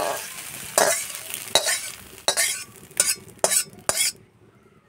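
Metal spatula scraping fried scrambled egg out of a metal kadai onto a steel plate: about seven quick scrapes, stopping about four seconds in.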